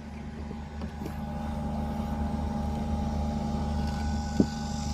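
Inverter air conditioner's outdoor unit running while it is charged with R410A refrigerant: a steady hum with a thin whine above it, growing slowly louder. A single click comes about four and a half seconds in.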